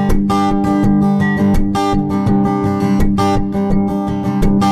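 Takamine acoustic guitar strummed in a steady down-up rhythm. The chords are broken about every second and a half by a sharp percussive clack, where the palm mutes the strings and the stroke slaps them.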